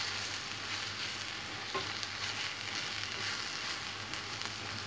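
Ground-beef filling with onion, peppers and herbs sizzling steadily in a stainless steel frying pan as a wooden spoon stirs and scrapes through it.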